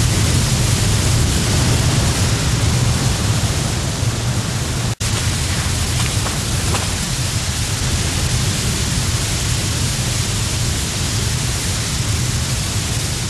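Tall waterfall: a loud, steady rush of falling water, heavy at the low end. It cuts out for an instant about five seconds in.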